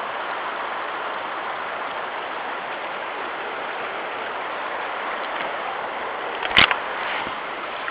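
Steady rush of stream water and rain, with one sharp knock about six and a half seconds in.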